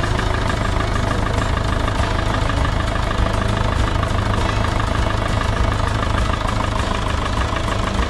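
Tractor engine running steadily, a continuous low hum.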